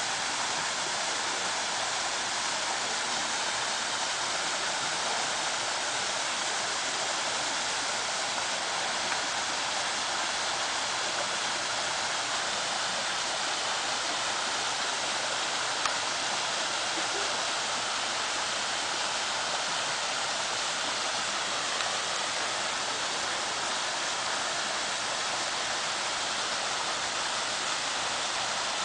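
Water rushing steadily over rocks in a small stream or cascade, an even, unbroken hiss.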